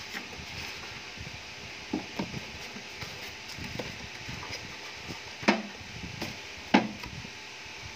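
Handling noise from an unboxed electric grill and its plastic packaging: light rustling and scattered knocks over a steady hiss, with two sharper knocks about five and a half and nearly seven seconds in.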